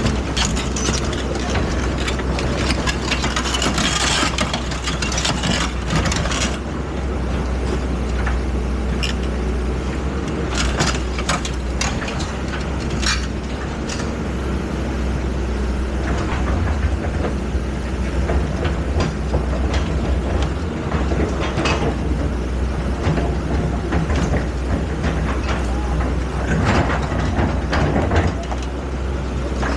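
Excavator engine running steadily, with scattered knocks and clatter from the machine working throughout.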